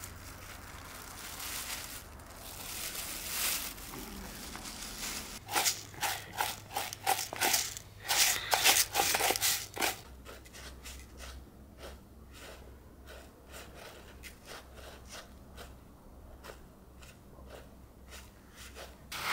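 Hands handling a plastic bag and fresh greens at a plastic basin: crinkling and crunching, with a dense run of sharp crackles from about five to ten seconds in, then fainter scattered clicks.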